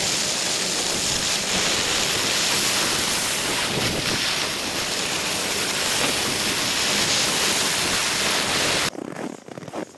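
Steady loud rushing hiss of skiing downhill: skis sliding over snow with air rushing past the microphone. It cuts off abruptly near the end.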